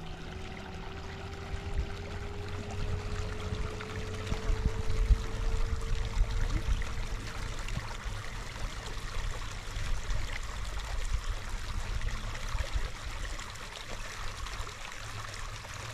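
Shallow stream flowing and trickling over stones, with an uneven low rumble underneath.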